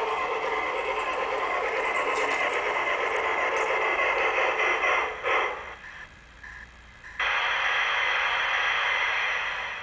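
LGB large-scale model train running on its track with a steady mechanical rattle and whirr. A short clack comes about five seconds in, then the sound cuts out suddenly for about a second and a half, comes back abruptly and fades near the end.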